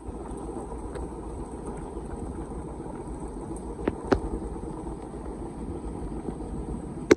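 Motorcycle engine running steadily during a ride, a low rumble. Two short knocks come about four seconds in, and a loud sharp click comes right at the end.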